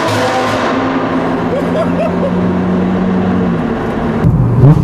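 A car engine running at a steady cruise, heard from inside the cabin, with the tunnel's echo. About four seconds in it switches abruptly to a louder engine sound.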